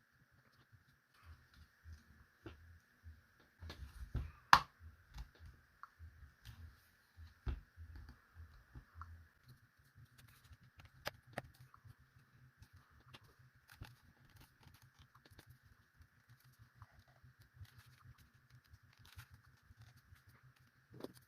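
Scattered small clicks and taps of tools and parts being handled while a Tronsmart Trip Bluetooth speaker is taken apart, with a sharper click about four and a half seconds in and another about three seconds later.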